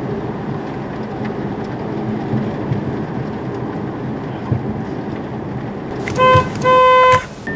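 Steady road and engine noise inside a moving car. About six seconds in, the Audi A6's Braking Guard collision warning sounds: a short beep, then a longer one at the same pitch, alerting that the car ahead is too close.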